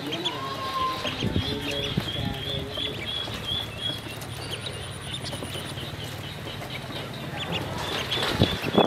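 A brood of ducklings peeping, a quick, continuous run of short high chirps.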